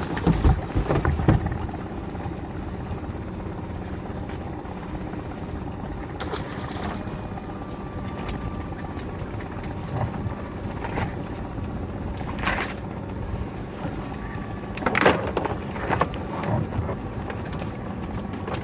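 Small boat's motor running steadily under wind and water noise, with scattered knocks and rattles as a lobster pot is handled at the side of the boat.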